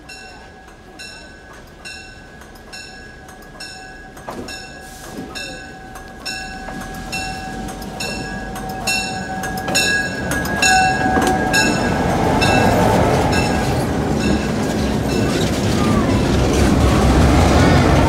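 Oncoming diesel locomotives passing close alongside on the next track, their engine rumble growing steadily louder and heaviest in the last several seconds. Evenly spaced rail-joint clicks run under it at a little more than one a second, with a steady high whine that fades out about ten seconds in.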